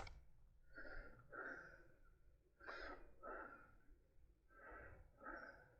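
A man breathing heavily close to the microphone, three slow in-and-out breaths about two seconds apart. The laboured breathing is put down to COPD. A sharp click comes right at the start.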